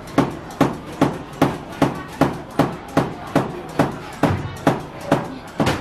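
Noodle-cutting machine's metal blade chopping down through the dough onto the cutting board in a steady rhythm, about two and a half knocks a second.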